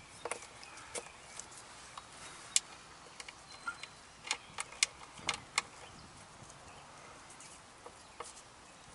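Scattered light clicks and taps of small bolts being handled and threaded by gloved hands into a Toyota automatic transmission's strainer (filter) mounting, with a cluster of louder clicks about halfway through.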